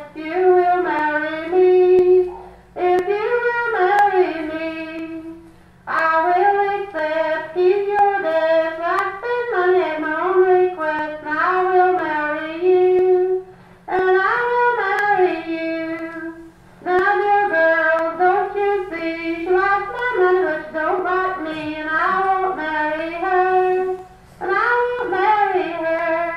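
A high female voice singing a traditional folk song unaccompanied, line by line with short breaths between phrases, played back from a field or archival recording over speakers in a room.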